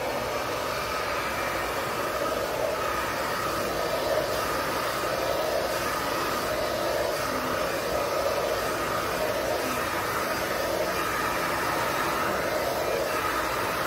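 Handheld hair dryer blowing steadily through natural hair. Its hum swells and fades every second or two as it is worked through the hair.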